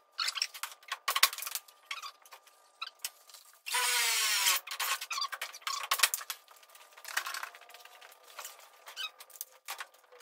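Cordless drill run in one burst of about a second, about four seconds in, its motor pitch sinking as it runs, with scattered clicks and taps of tools being handled on the car's hood.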